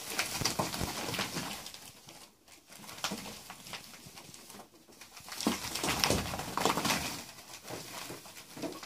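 Ferrets scrabbling and running through a ribbed clear plastic tunnel on carpet, their claws and bodies rattling and scraping the flexible tube in irregular flurries, loudest just past the middle.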